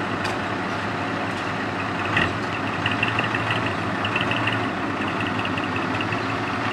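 Old ten-wheeler flatbed truck's diesel engine running steadily as the truck rolls slowly. A sharp clunk comes about two seconds in, followed by a few seconds of short, high squeaks or rattles.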